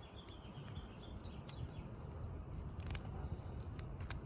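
Faint scratching and a few small clicks of fingernails picking at and peeling the backing off a double-sided foam adhesive pad.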